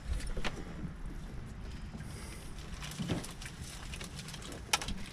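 Wind buffeting the microphone over water lapping against a small boat's hull, with a few sharp knocks, the loudest near the end.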